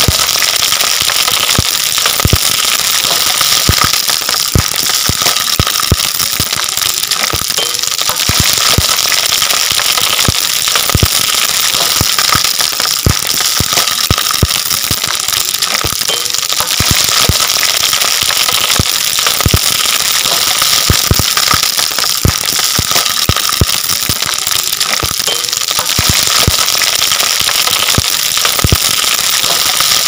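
Parrotfish skin deep-frying in hot oil in a stainless steel wok: a loud, steady sizzle with many sharp pops and crackles throughout.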